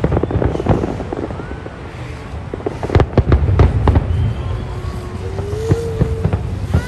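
Aerial fireworks bursting: clusters of sharp bangs and crackles over a low rolling rumble, densest near the start and again around three seconds in.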